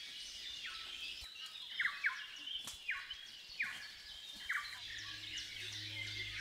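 Small birds calling in New Zealand bush: short, falling chirps repeated about once a second over a faint background hiss. A low steady hum comes in near the end.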